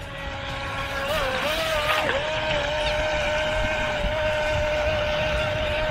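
Brushed electric motor of a 4DRC S3 RC speed boat whining at one steady pitch as it runs across the water. The pitch wavers briefly a second or two in, then holds steady as the whine grows a little louder, on a boat that keeps bogging down and then picking up.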